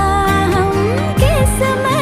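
Background music: a Hindi film song with a held, gliding vocal or melody line over a steady beat and bass, between sung lines.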